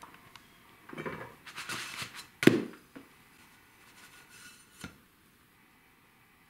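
Cookware being handled: a frying pan and its lid knocking and scraping, with one sharp clank about two and a half seconds in, then a few softer knocks and a last click.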